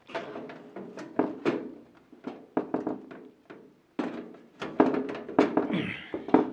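Irregular thunks and knocks of a motherboard being set down into an NZXT H510 PC case and nudged into place to line up with the rear I/O slot, busiest in the second half.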